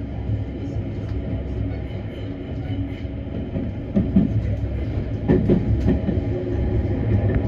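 Tobu Skytree Line commuter train running at speed, heard from inside the passenger car as a steady low rumble. A couple of wheel knocks come about four and five seconds in.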